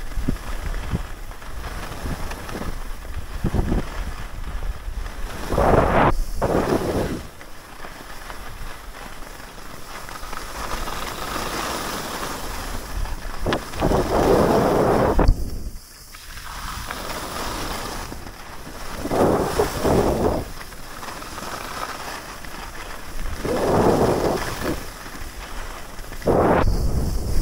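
Skis hissing and scraping on groomed snow, swelling with each turn about every four or five seconds, the longest swell near the middle. Low wind rumble on the microphone underneath.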